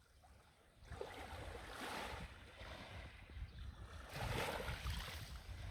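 Sea waves washing onto the shore, surging twice about two and a half seconds apart, with wind rumbling on the microphone.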